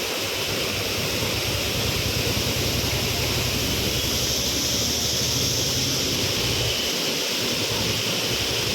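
Waterfall: water falling and rushing in a steady, loud, unbroken wash of noise.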